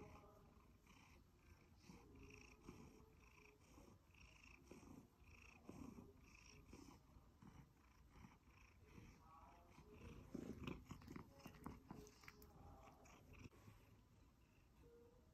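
Siberian Forest cat purring quietly while having its chin scratched, the purr pulsing evenly about twice a second. A few louder, brief scratchy noises come about two-thirds of the way in.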